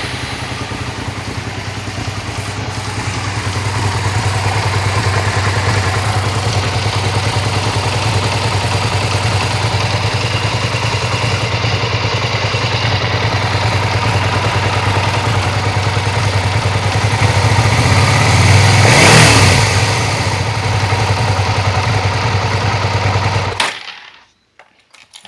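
Suzuki SV650 V-twin motorcycle engine running with a rapid ticking, which the owner suspects is a loose, out-of-adjustment valve rather than the usual cam chain tensioner noise. It gets louder briefly about 19 seconds in and is switched off near the end.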